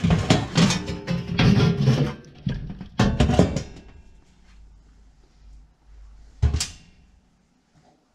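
Sheet-metal fan cover of an electric fan oven being refitted over the new fan element: the panel clatters and scrapes against the oven's metal back wall for about four seconds, then a single sharp knock a few seconds later.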